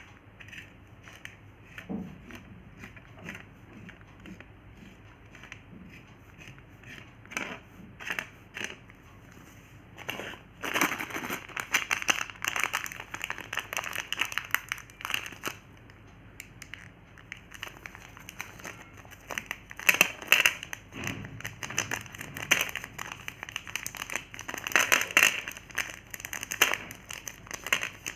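Plastic Gems chocolate packet crinkling and crackling as it is handled and unwrapped, in irregular bursts, sparse at first and busier from about ten seconds in.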